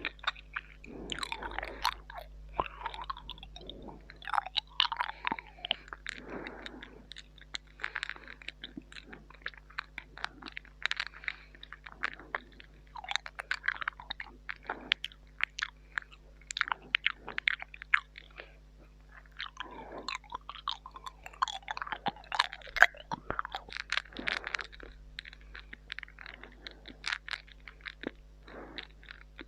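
Close-up ASMR mouth sounds into a mini microphone: wet smacks, tongue clicks and chewing noises coming in quick irregular clusters.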